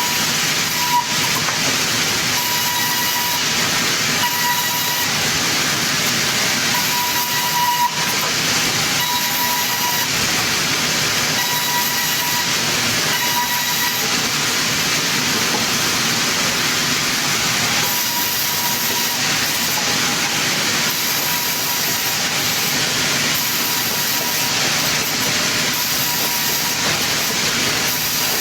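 Sawmill circular saw running through timber: a loud, steady hiss of cutting with a faint whine that comes and goes, and a couple of brief knocks.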